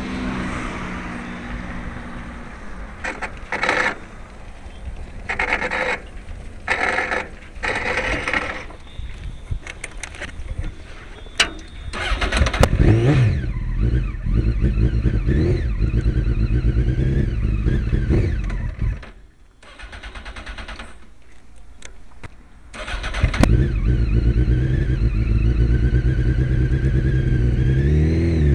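Honda CBR900RR Fireblade's inline-four engine pulling away and accelerating from about twelve seconds in, easing off for a few seconds, then pulling hard again with revs rising near the end. Before the engine comes up there are several short bursts of noise.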